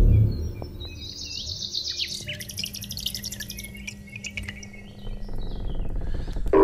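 High, bird-like chirps and a fast chittering trill in the first half over a steady low hum, with a low rumble rising near the end.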